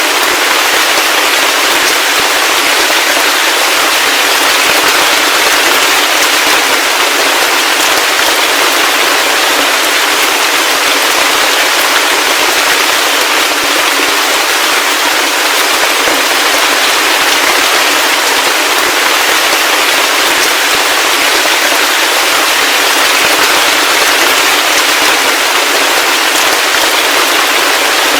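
Heavy rain falling steadily: a loud, even hiss dense with the crackling patter of countless drops, and no low rumble.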